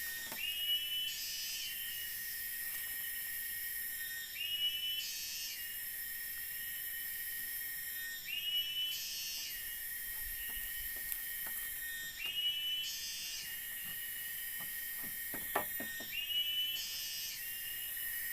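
Forest wildlife: a steady high insect drone, with an animal call repeating about every four seconds, each a short rising whistle followed by a rasp. A few faint clicks come near the end.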